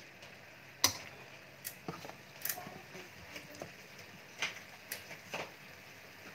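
Chicken leg quarters simmering in marinade in a metal wok: a faint steady bubbling hiss broken by irregular sharp pops and ticks, the loudest about a second in.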